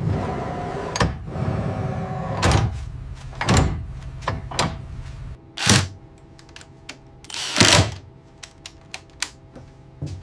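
Irregular knocks, thuds and clanks over a low rumble that cuts off about halfway through, followed by sharp clicks over a faint steady hum.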